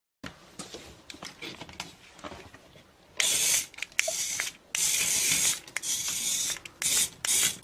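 Faint rustling and clicks, then from about three seconds in a string of loud, sharp hissing bursts, each under a second long, with short gaps between.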